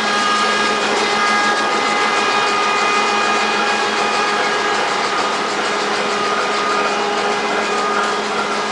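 A locomotive's machinery running steadily at standstill: an even whir with a constant pitched hum, easing a little near the end.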